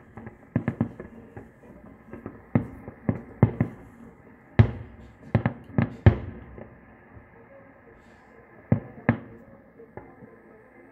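Aerial fireworks shells bursting in a ragged string of booms, each with a short echoing tail. They come thick over the first six seconds, the loudest about halfway, then after a pause two more near the end.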